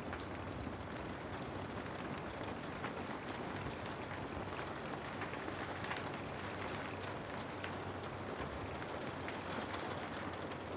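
Steady rain, with a dense patter of small drops striking a surface.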